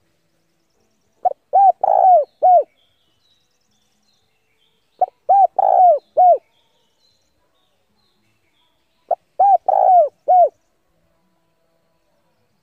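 Spotted dove cooing: three phrases about four seconds apart, each a quick run of four or five hoarse, down-curving coos. It is the dove's territorial challenge call, here given by a caged decoy bird to lure wild males.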